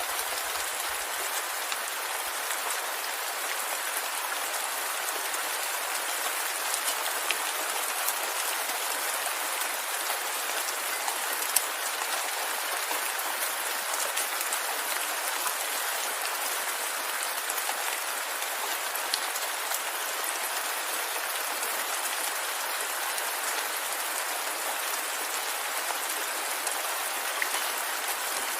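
Steady rain, an even hiss without low rumble, dotted with scattered sharp ticks of single drops, one louder about midway.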